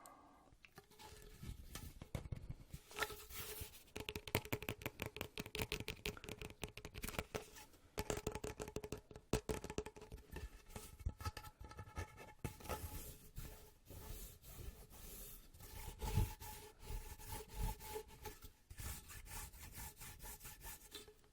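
Fast ASMR tapping and scratching with fingertips and nails, a dense run of quick clicks and rubs with brief pauses, some taps ringing faintly off the tapped object.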